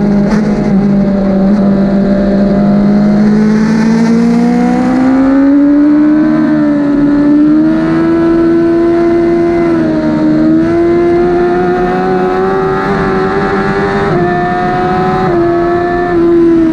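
2008 Suzuki GSX-R1000's inline-four engine running hard at high revs on track, its pitch climbing over the first six seconds and then holding high with small dips and jumps, including a brief dip about ten seconds in.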